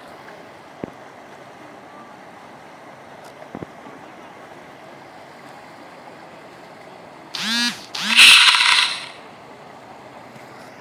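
A loud two-part shout from a man's voice about three-quarters of the way in, over a steady rushing noise of flowing floodwater.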